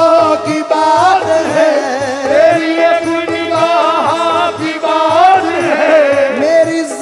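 Live qawwali music: a sustained, gliding vocal line over a keyboard and a steady hand-drum beat.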